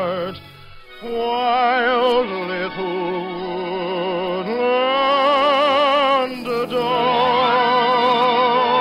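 Operatic solo voice singing long held notes with wide vibrato in an operetta number, over orchestral accompaniment. There is a short breath gap about half a second in. It is an early-1950s radio broadcast recording with dull, cut-off treble.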